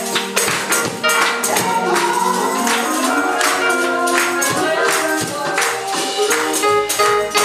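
Live gospel music: instruments and voices holding chords over a steady beat of sharp percussion strokes, about two a second.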